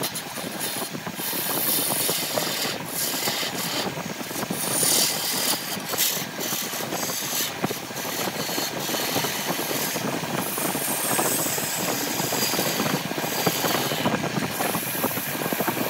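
Wood lathe running while a hand-held turning tool cuts the spinning aged grapefruit-wood blank: a continuous rough scraping of the cut over the motor's hum, swelling and easing as the tool is pressed and moved.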